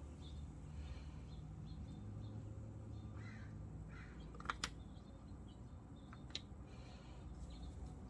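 Quiet outdoor background with a few bird calls, and sharp clicks about halfway through, twice in quick succession and once more a couple of seconds later, from a screwdriver and the plastic video doorbell being handled at its mounting bracket.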